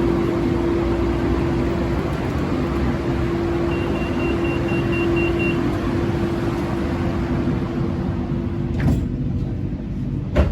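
BTS Skytrain electric train running between stations, heard from on board: a steady rumble with a steady motor hum. The hum stops about nine seconds in with a knock, and a second knock comes near the end.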